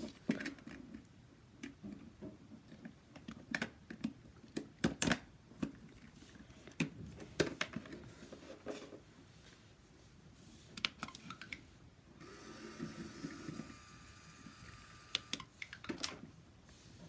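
Plastic LEGO Technic parts clicking and knocking as they are handled and snapped together. About twelve seconds in, a small electric motor whirs steadily for about three seconds.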